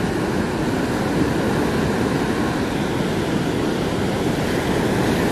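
Heavy surf breaking continuously on the beach, a steady rushing wash of waves churned up by a typhoon's swell.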